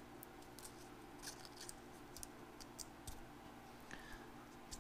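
Faint crackles and clicks of brittle, decades-old plastic packaging on a ration cereal bar being worked open, over a low steady hum.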